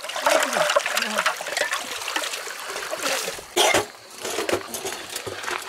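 Water splashing and trickling as a metal cooking pot is dipped into a shallow stream and filled, with a brief louder noise about three and a half seconds in.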